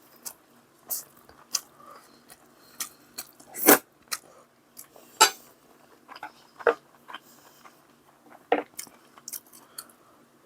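A person eating: chewing and crunching food. Sharp clicks and taps of utensils against dishes come now and then.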